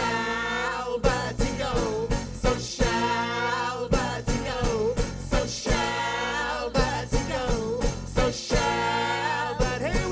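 Live folk-rock band playing: fiddle carrying a wavering melody over strummed acoustic guitar, bass and drum kit.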